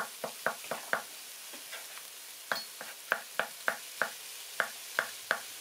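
Kitchen knife chopping shiitake mushrooms on a wooden cutting board: a run of sharp taps about three a second, pausing for a little over a second near the middle before resuming.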